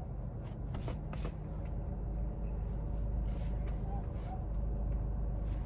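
Low, steady rumble of a car idling, heard from inside the cabin, with a few short rustles and clicks over it.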